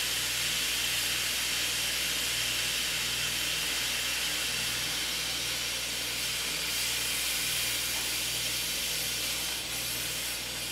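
Instant Pot electric pressure cooker releasing steam through its vent valve, set to venting for a quick release of pressure after cooking: a steady hiss, coming through a towel draped over the valve.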